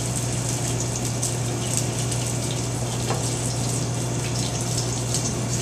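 Steady rushing background noise of a commercial kitchen, with gas range burners running under a constant low hum and a few faint clicks.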